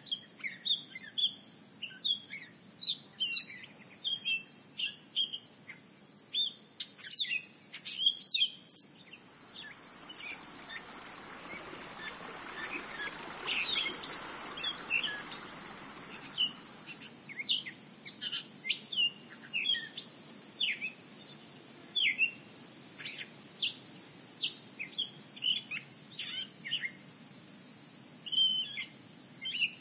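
Outdoor nature ambience: many short bird chirps over a steady, high-pitched insect trill, with a soft rushing swell of noise from about ten to sixteen seconds in.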